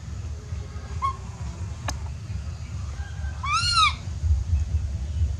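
Baby macaque giving one high, arched coo call about three and a half seconds in, rising and then falling in pitch: an infant's call for its mother. A short squeak comes about a second in and a single click near the middle, over a steady low rumble.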